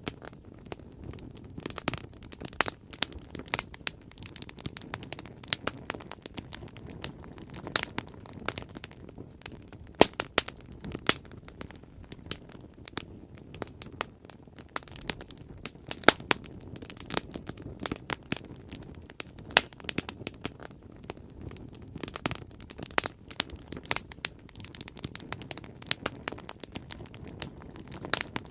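Bonfire crackling: irregular sharp pops and snaps of burning wood, a few of them much louder, over a low steady rush of the flames.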